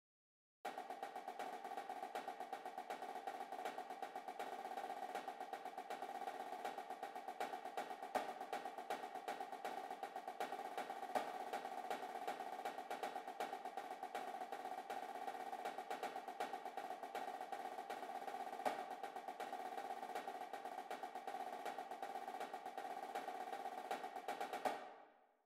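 Snare drum playing a triplet tap-roll warm-up: a fast, even stream of strokes and double-stroke diddles with a few louder accented notes. It starts about a second in and fades out near the end.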